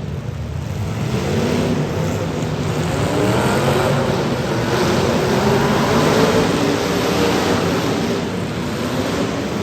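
Demolition derby car engines running and revving, their pitch wavering up and down, over a steady noisy rumble.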